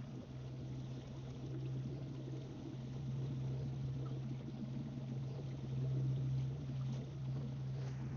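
Kayak moving on the water, with water sloshing and a steady low hum throughout.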